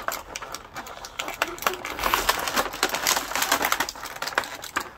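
Clear plastic packaging tray crackling and clicking as an action figure is worked out of it by hand, the clicks growing denser and louder about two seconds in.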